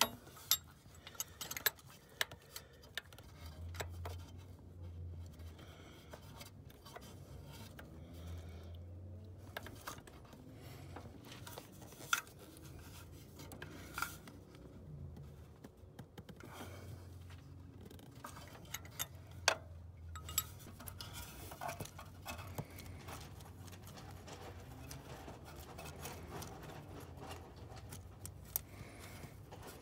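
Scattered metallic clicks and clinks of a combination wrench against the coolant temperature sensor and the engine block, as the sensor is being tightened by hand in a cramped engine bay.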